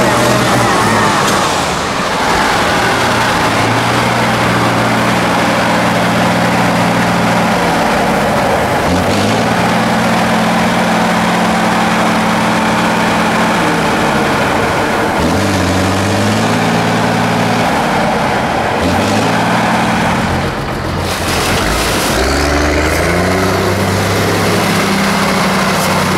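Off-road truck's diesel engine working hard over terrain. Its note holds steady for several seconds at a time, then drops and climbs again three times.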